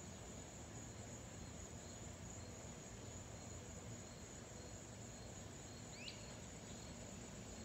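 Faint outdoor background of steady insect trilling, with a low steady hum underneath. A single short bird chirp sounds about six seconds in.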